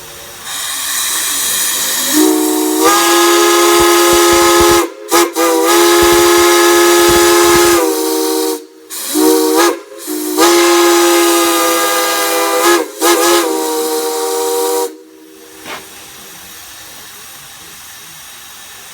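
Multi-chime steam whistle blown in a series of blasts, several long ones with short toots between, each sounding a chord of several notes. A hiss of steam comes before the first blast and carries on after the last one stops.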